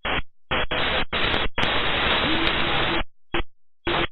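Aviation radio static: a string of bursts of hiss that switch on and off abruptly as transmissions are keyed with no voice on them. The longest burst comes in the middle, and a few short ones follow near the end.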